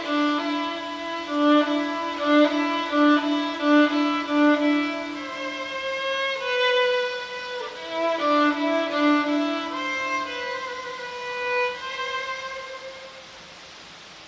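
Solo violin played with the bow, an improvised melody: repeated strokes on a low note for the first few seconds, then slower, longer notes higher up. It trails off near the end.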